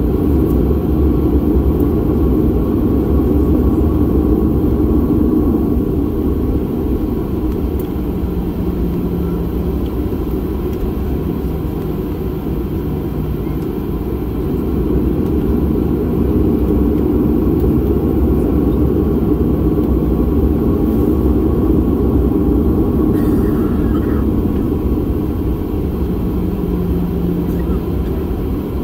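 Steady low rumble of cabin noise inside a Boeing 737-800 on the ground, from its CFM56 engines at idle and the air-conditioning flow.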